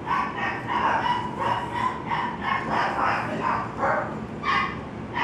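Dogs barking over and over in a quick, steady run, about two to three barks a second.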